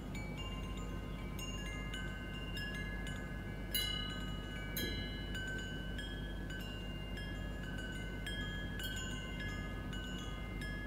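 Wind chimes ringing: scattered strikes whose clear tones hang on and overlap, over a steady low hum.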